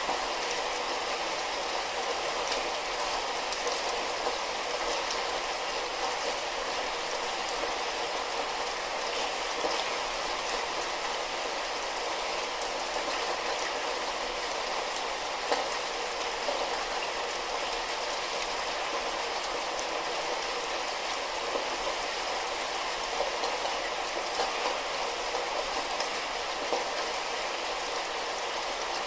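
Light rain falling steadily, an even hiss with scattered sharp drips and ticks of drops landing.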